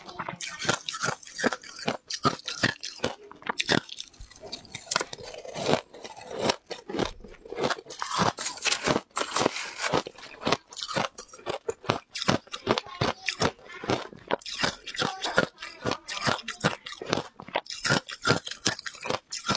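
Shaved ice topped with passion fruit pulp crunching between the teeth while being chewed: rapid, crisp crunches in close succession, easing briefly about four seconds in.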